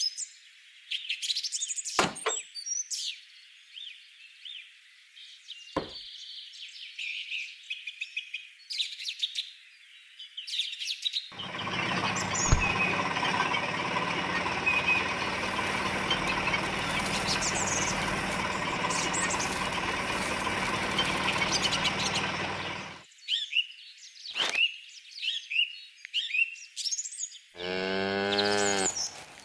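Birds chirping, with a couple of sharp clicks early on, broken in the middle by a loud, steady, rushing noise of about eleven seconds that starts and cuts off abruptly; near the end a cow moos once.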